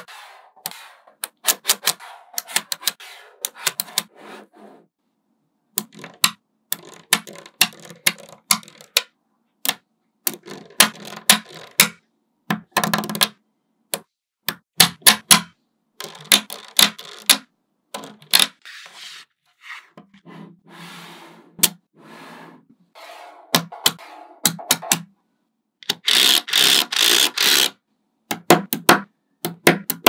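Small magnetic balls clicking and snapping together as rows and strips are pressed onto a build, in irregular clusters of sharp clicks. Near the end a dense rapid rattle of clicks as a long strip of balls snaps into place.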